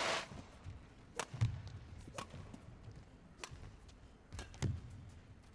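Badminton rally: crisp cracks of rackets striking the shuttlecock, about one a second, some with a dull thud of feet landing on the court.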